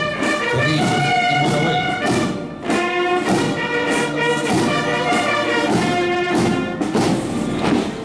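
Military marching band playing a march: brass holding chords over a steady drum beat of about two beats a second.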